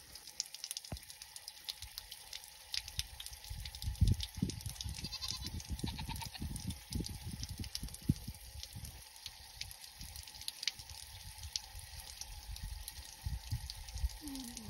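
Irregular low thumps and rumbles on the microphone, with a goat bleating near the end: one falling call that then wavers.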